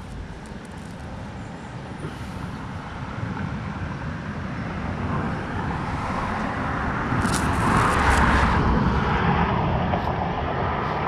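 A road vehicle passing by, its noise swelling to a peak about eight seconds in and then fading.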